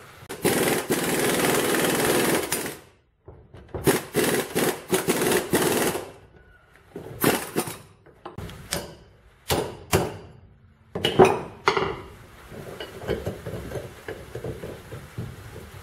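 Impact wrench rattling in bursts as it drives the screw of a C-clamp ball-joint press, pushing the caps out of a front-axle U-joint. It is followed by a few separate sharp metal knocks.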